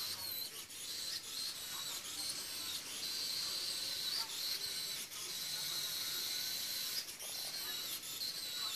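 Small robot car's tiny electric drive motors running at speed setting 160, giving a steady high-pitched whine that wavers slightly in pitch, over a hiss, with occasional faint clicks.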